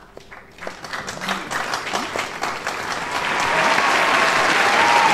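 Crowd applause, starting as scattered claps and swelling to loud, full clapping, with a few cheers rising over it in the second half.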